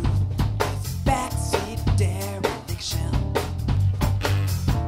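Live band playing an instrumental passage: a drum kit keeps a steady beat of kick, snare and cymbal hits under a bass line and sustained cello notes.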